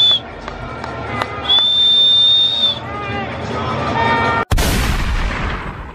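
A whistle blown in one long, steady, high blast amid crowd noise. After a sudden cut, a loud burst of noise fades away over about a second.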